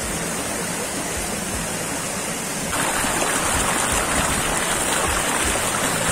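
Shallow stream running over rocks, a steady rush of water. About three seconds in, the rush becomes louder and brighter.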